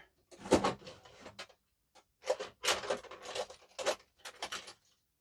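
Metal tools scraping, rubbing and clicking against a padlock as its C-clip is worked off, in a string of short bursts with brief gaps.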